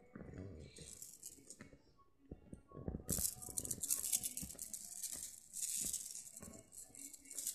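A small handheld rattle shaken close to the microphone. A few softer shakes and handling knocks come first, then about three seconds in a dense, dry hissing rattle in quick bursts runs on.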